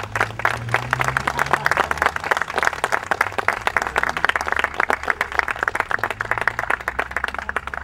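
Audience applauding steadily at the close of a reading.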